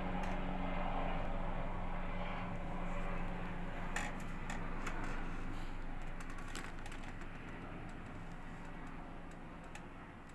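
Distant vehicle engine hum, low and steady, slowly fading away. Scattered light clicks and taps start about four seconds in.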